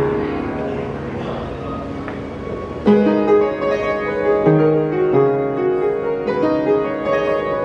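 Piano playing. Notes are held softly at first, then a steadier run of struck chords begins about three seconds in.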